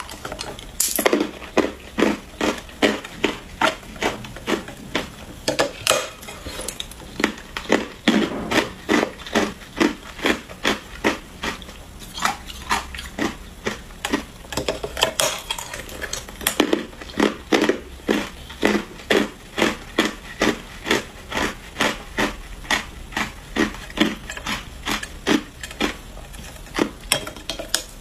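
Teeth biting and crunching into a large block of hard ice, a steady run of sharp cracking crunches at about two to three a second.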